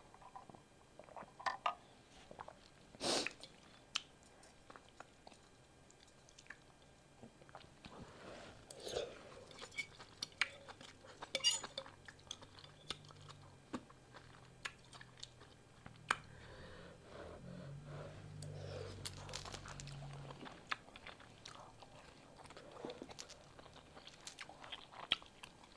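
Close-up mouth sounds of a person eating beef pho rice noodles: chewing, with many scattered sharp clicks. A low hum sounds for a few seconds past the middle.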